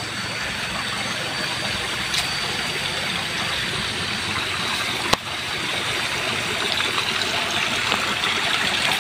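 Steady rush of running water, as of a stream or irrigation channel, with a single sharp click about five seconds in.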